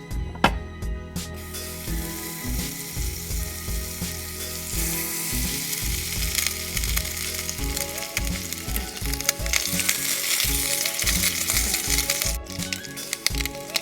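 Food sizzling as it fries in a miniature frying pan, a steady hiss that starts about a second and a half in and cuts off abruptly near the end, with a few clicks after. Background music with a steady beat plays underneath.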